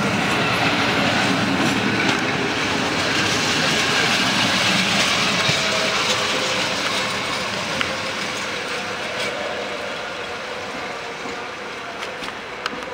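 Passenger coaches of a departing electric-hauled train rolling past on the rails. The steady rumble and rush fade as the last coach pulls away, and there is a sharp click near the end.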